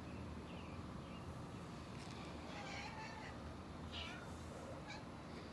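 Cats meowing in several short, high calls. The loudest, about four seconds in, comes from the tortoiseshell cat.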